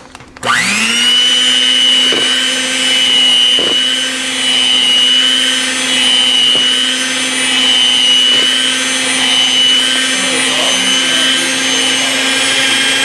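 Electric hand mixer running at a steady speed, its beaters whisking eggs into creamed butter and sugar. The motor spins up with a quick rising whine just after the start, then holds a steady whine.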